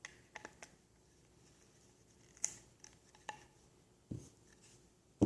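Light clicks and small taps of hands working electrical tape around a smooth plastic knife sheath, with a dull thump about four seconds in.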